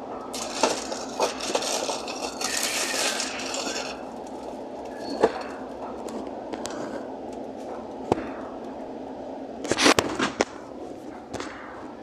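Aluminium soda cans being handled and set onto refrigerator shelves, with rustling of the cardboard 12-pack box, then a few sharp clinks and knocks, the loudest cluster about ten seconds in.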